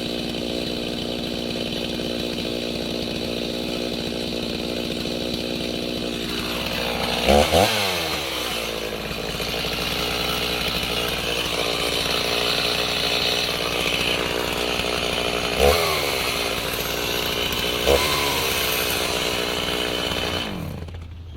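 Two-stroke petrol chainsaw running in a chainsaw-mill attachment, ripping a log lengthwise. Its engine note drops about six seconds in as the saw takes load in the cut, with a few brief louder spikes later on, and the sound cuts off abruptly just before the end.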